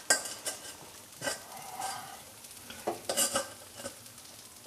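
Sugar-crusted almonds and hazelnuts being scraped and tipped out of a stainless steel saucepan onto a baking mat: a series of short scrapes and rattles.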